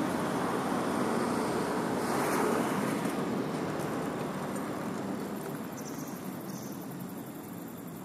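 Road traffic noise from a passing vehicle: a steady rushing that swells about two seconds in and then slowly fades away.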